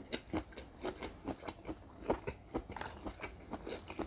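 Chewing grilled river prawn meat: a string of short, irregular mouth clicks, a few each second.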